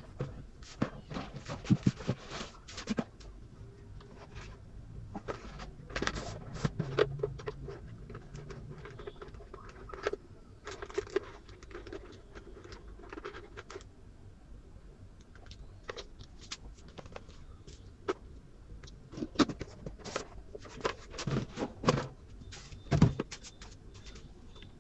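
Handling noise from a TV remote control and its batteries being fitted: irregular clusters of plastic clicks, taps and scrapes with short pauses between them.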